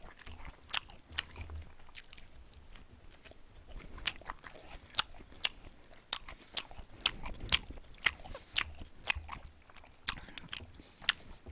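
A person chewing and biting food close to a microphone: a string of irregular short mouth clicks and crunches, several a second, thickest between about four and ten seconds in.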